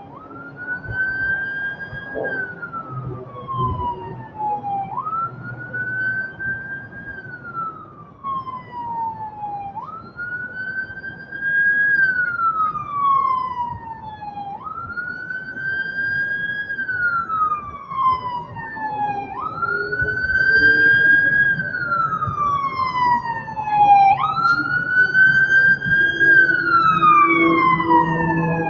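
Emergency vehicle siren in wail mode. The pitch rises quickly, then slowly falls, repeating about every five seconds, about six times in all. It grows louder in the second half.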